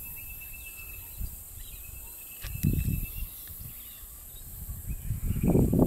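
Outdoor ambience of insects buzzing steadily at a high pitch, with a thin whistling call that comes and goes. Low muffled rumbles come twice, the louder near the end, and there is one sharp click about two and a half seconds in.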